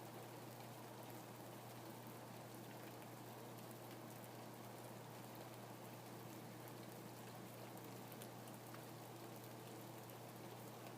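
Faint, steady rain falling, with scattered single drops ticking through it and a low steady hum underneath.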